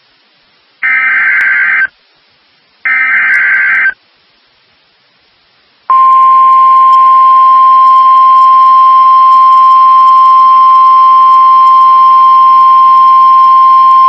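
NOAA Weather Radio EAS alert: the last two one-second screeching bursts of the SAME digital header, then after a two-second gap the 1050 Hz warning alarm tone starts about six seconds in and holds at one steady high pitch. Together they signal a severe thunderstorm warning being broadcast.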